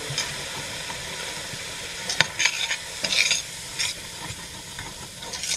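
Diced onions, garlic and flour sizzling in olive oil in a pot while being stirred, with a utensil scraping against the pot several times from about two seconds in. The flour is being cooked into the oil as a roux.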